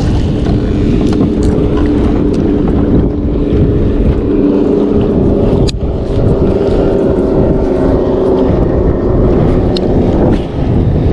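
Wind buffeting the microphone with a heavy low rumble, over a steady hum from the boat's motor that fades near the end. A few sharp clicks come through, the clearest about halfway in.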